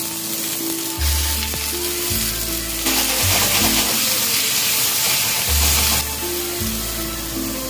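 Oysters and maitake mushrooms sizzling as they fry in oil in a Beijing-style wok. The sizzle grows much louder about three seconds in and drops back about six seconds in.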